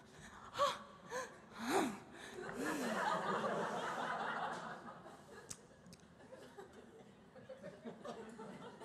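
Audience laughing: a few short chuckles at first, then a wave of laughter from many people about two and a half seconds in that fades away over the next few seconds.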